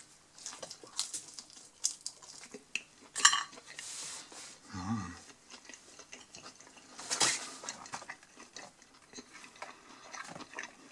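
Several sharp clacks of a ceramic plate being handled on a wooden table, the loudest about three seconds in and another about seven seconds in, with chewing of crisp pizza crust in between.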